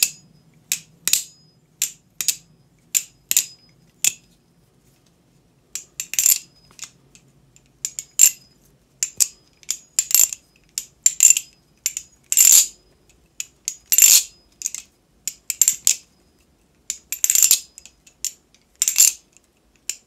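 Mako V4 clone balisong trainer being flipped for a sound test: its anodized aluminium handles and bushing pivots clack shut and open in sharp metallic clicks at irregular intervals, with a short pause about four seconds in. Freshly tightened and oiled, it sounds pretty good, with no loose rattle.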